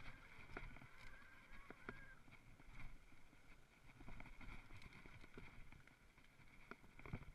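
Mountain bike rolling down a dirt forest trail: low tyre rumble with scattered rattles and knocks from the bike as it goes over bumps, over a faint steady whine.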